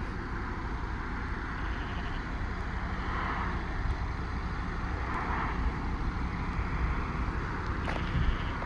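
2018 Audi RS3's turbocharged inline five-cylinder engine running steadily at low revs through its RS sport exhaust as the car rolls slowly along.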